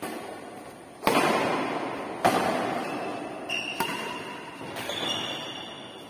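Badminton racket strikes on a shuttlecock during a rally, about five sharp hits a second or so apart, each ringing on in the echo of a bare hall. A couple of short high squeaks come in the second half.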